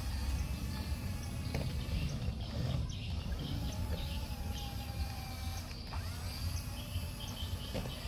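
Small RC bulldozer working through sand, its electric drive motor whining faintly over a steady low rumble, with birds chirping now and then.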